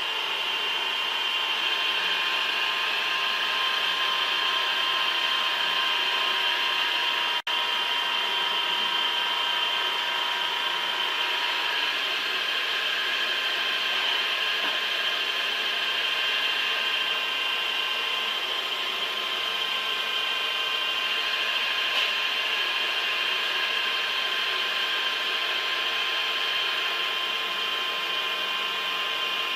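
Steady high-pitched whine and hiss of a CNC machine tool cutting metal, with several held tones, cutting out for an instant about seven seconds in.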